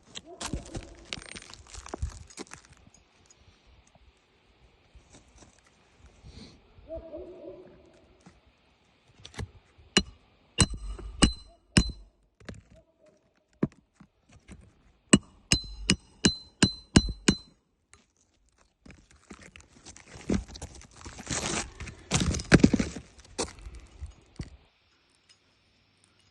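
Hammer strikes on a shingle roof in two quick runs of sharp, metallic, ringing blows, about seven and then about eight, with scraping and rustling of shingles between and afterwards.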